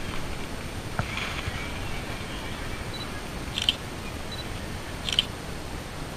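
Camera shutter firing twice, two short sharp clicks about a second and a half apart, with a soft knock about a second in.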